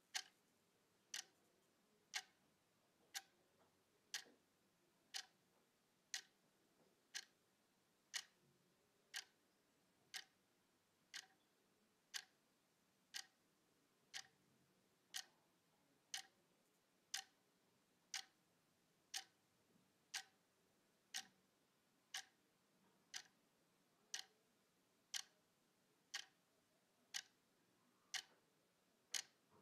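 Clock ticking evenly, about one tick a second.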